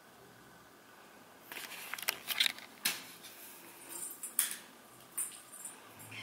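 Scattered light clicks, scratches and clinks from kittens moving on a tiled floor, pawing at a wand toy around a metal tray of raw meat, clustered in the middle few seconds.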